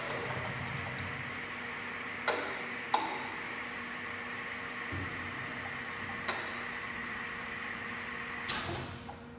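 Elephant compressed-air vacuum lifter hissing steadily, with several sharp clicks from its controls. Near the end the hiss cuts off suddenly with a loud click.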